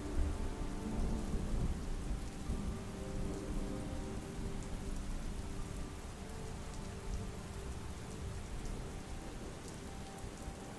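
Steady soft rain with a low rumble of thunder that swells at the start and slowly dies away, under soft held notes of an ambient score.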